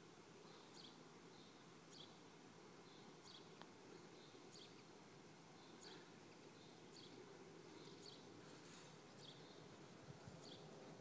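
Near silence: faint outdoor ambience with a high, short chirp repeating about twice a second.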